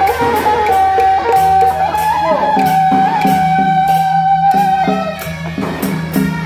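Loud procession music: a sustained, gently bending melody line over a low drone, with percussion strokes about twice a second.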